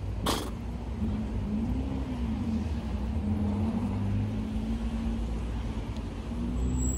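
A motor vehicle's engine rumbles close by with a steady, slightly wavering hum. A single sharp click or snap comes just after the start.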